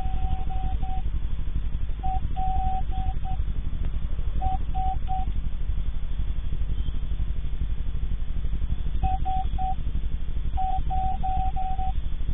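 Steady low hum with a fast flutter, heard through a surveillance camera's narrow-band microphone. Clusters of short beeps at one fixed pitch come and go over it, with a long gap in the middle.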